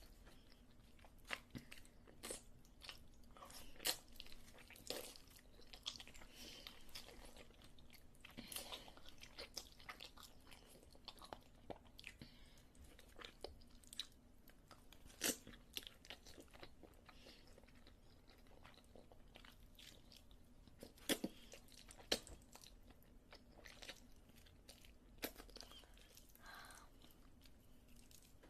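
A person chewing and biting food close to the microphone: quiet, irregular crunches and wet clicks.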